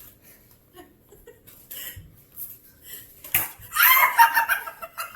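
A sharp snap about three and a half seconds in, a Nerf gun firing a foam ball, followed half a second later by a loud, high-pitched cry from the person it hits.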